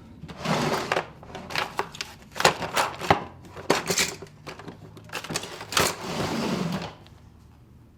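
A run of sharp clicks and knocks, irregularly spaced, between two short rustling or whooshing noises.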